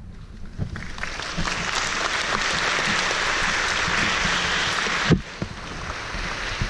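Audience applauding, building over the first couple of seconds and then dropping off abruptly with a thump about five seconds in; fainter clapping goes on after it.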